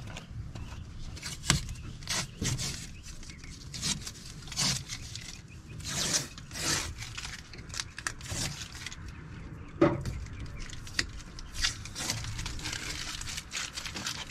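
Plastic door trim parts being handled and fitted on a bare car door: irregular clicks, scrapes and rustling, with a sharp knock near the start and another about ten seconds in.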